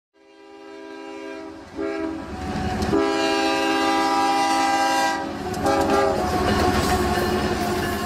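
Diesel freight locomotive air horn sounding several blasts of a multi-note chord, over the rumble of an approaching train that grows louder over the first few seconds.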